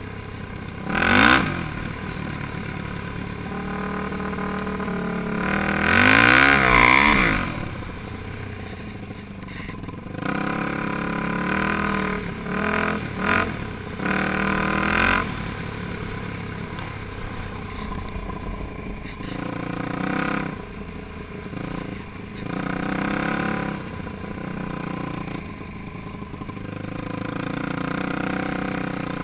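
Yamaha YFZ450 quad's single-cylinder four-stroke engine running under way, revving up and down with the throttle. The loudest surges come about a second in and again around six to seven seconds in.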